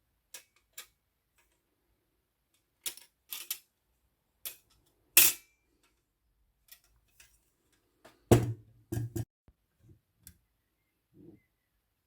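Irregular small clicks and knocks of Olivetti Lettera 22 typewriter parts and tools being handled during reassembly. One sharp click stands out about five seconds in, and a quick run of heavier knocks comes near two-thirds of the way through.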